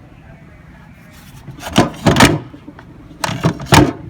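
Hard knocks and clatter of wet-and-dry vacuum cleaner parts being handled, in two short clusters, one near the middle and one near the end.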